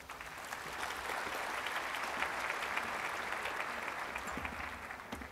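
Audience applauding: many hands clapping together, starting at once, holding steady, then dying away near the end.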